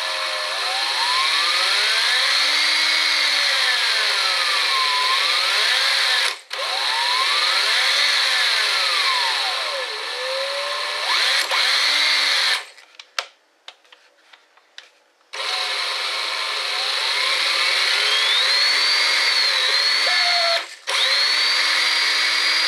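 Ridgid X2 cordless hammer drill's motor running under the variable-speed trigger. Its whine rises and falls in pitch as the trigger is squeezed and eased, in a test of the speed control. The drill stops briefly a few times, is off for a few seconds in the middle, then runs up and down again.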